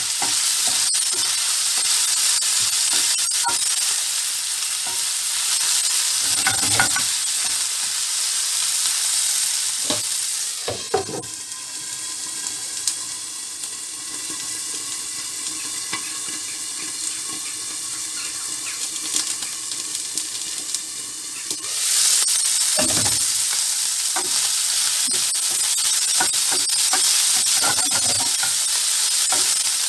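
Cubed liver sizzling as it sears in a very hot non-stick frying pan, stirred now and then with a wooden spatula that scrapes and knocks against the pan. About 11 seconds in a glass lid goes on with a clunk and the sizzle turns muffled and quieter. About 22 seconds in the lid comes off and the loud sizzle returns.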